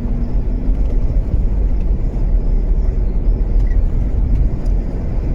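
Steady low rumble of engine and road noise from a vehicle driving along a road while towing a trailer.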